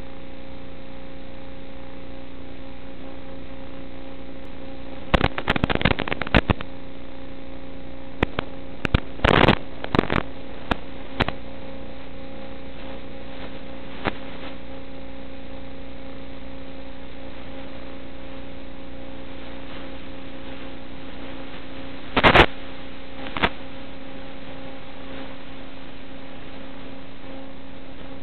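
Steady electrical hum on the audio of an analog FPV video recording, with short crackling bursts of static several times; the hum does not change with throttle, so no jet fan sound comes through.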